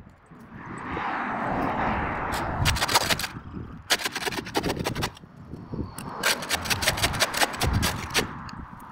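Steel flat shovel scraping packed dirt and grass off a concrete sidewalk, in two runs of gritty scraping full of sharp ticks as the blade grates on the concrete.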